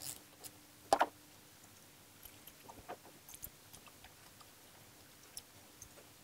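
Scattered light clicks and taps of an 8 mm wrench working the bolts under a motorcycle's triple clamp, with a sharper double click about a second in.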